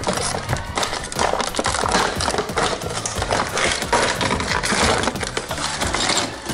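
Clear plastic packaging crinkling and rustling as a shower unit and its hose are handled and pulled out of the bag, with background music playing underneath.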